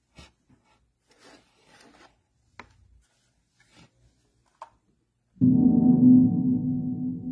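A synth note played from an Akai MPK mini keyboard controller: faint taps and rustling, then about five seconds in a loud, rich held note sets in suddenly and slowly fades.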